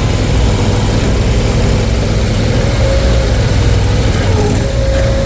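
An engine running steadily, a low, even drone with no change in speed.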